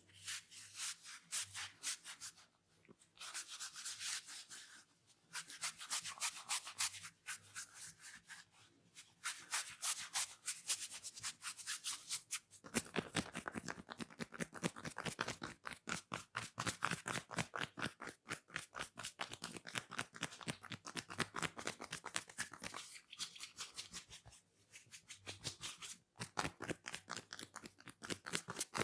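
Hands rubbing and crackling through hair against the scalp in a head massage: a dense, fast rasping crackle that stops briefly a few times and is louder and fuller for about ten seconds in the middle.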